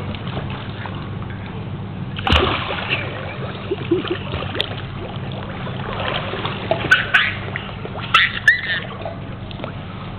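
A toddler jumping into a pool: one big splash about two seconds in, followed by lighter splashing and sloshing of the water, with a few sharp clicks near the end.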